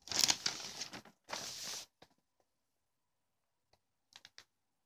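Glossy paper leaflet pages rustling as they are handled and turned: two brushing rustles in the first two seconds, then a few faint crinkles near the end.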